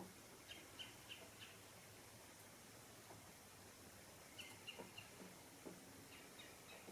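A small bird chirping faintly over a quiet woodland hush, in three short runs of quick high chirps: one near the start, one past the middle, one near the end.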